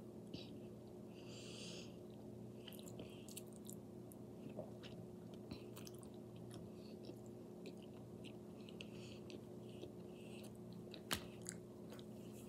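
A person chewing a mouthful of spaghetti, with faint wet mouth clicks over a steady low hum. A sharper click comes near the end.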